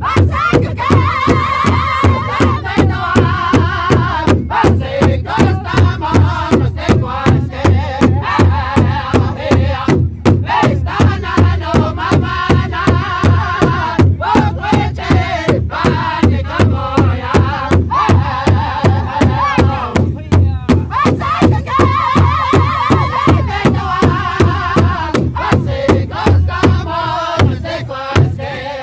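Powwow drum group performing an intertribal song: several men singing together in high voices while beating one large bass drum in unison with padded sticks, in a fast, steady beat.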